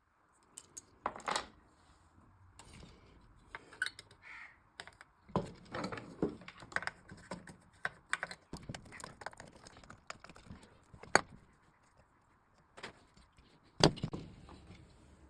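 Small tools and metal parts handled on a workbench: irregular clicks, clinks and short scrapes, with two louder sharp knocks in the last third.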